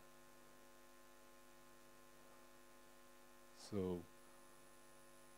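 Quiet, steady mains hum. One short spoken syllable from the lecturer comes about three and a half seconds in.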